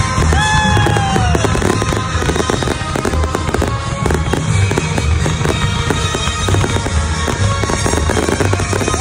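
Fireworks going off: steady crackling with repeated low booms, mixed with music playing. A pitched tone slides down about half a second in.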